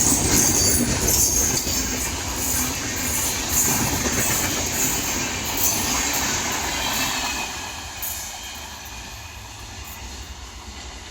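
Archana Superfast Express passenger train running through the station at speed, its coaches' wheels clattering and rumbling on the rails. The noise fades away from about eight seconds in as the last coaches go by.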